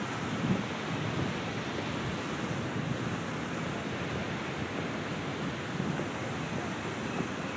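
Steady rushing noise with a low rumble and no distinct events, of the sort that splashing water or a breeze makes.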